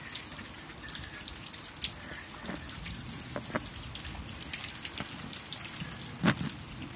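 Rain falling, with many irregular drops ticking close by on surfaces; one louder drop strike lands about six seconds in.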